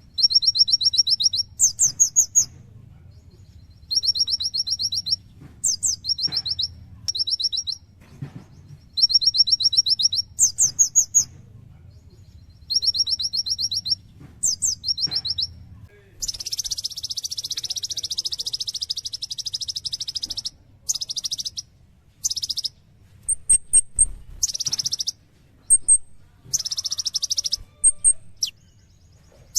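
A kolibri ninja (sunbird) singing vigorously: fast, high trilled phrases about a second long, repeated every couple of seconds with occasional higher rising notes. About halfway through it breaks into a long unbroken trill, then shorter trill bursts mixed with brief high chirps.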